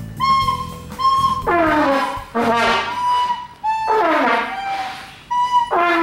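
Trumpet playing loud notes whose pitch slides downward, four of them, alternating with short, steady, thinner-toned higher notes.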